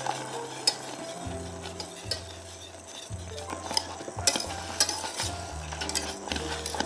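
Wire balloon whisk stirring a mixture in a stainless steel pot, its wires scraping and clicking against the metal sides, with the sharpest clicks about a second in and again past four seconds. Soft background music plays underneath.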